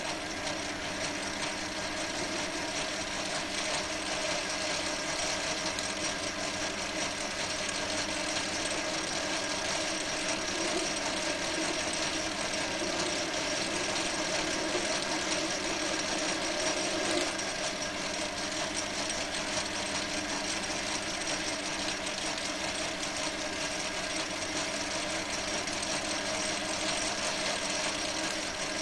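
Small Chinese metal lathe running steadily while a carbide insert tool turns a steel bar; the motor and gearing give a steady whine of several held tones over a continuous hiss of cutting.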